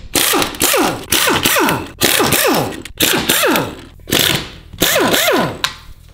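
Pneumatic impact wrench driving the wheel bolts of a BMW E34: about a dozen short bursts, each falling in pitch.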